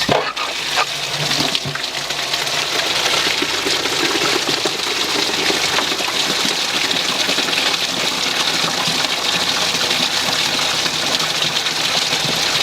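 Water gushing steadily into a 10-gallon cooler mash tun, filling it to check the new valve and fittings for leaks.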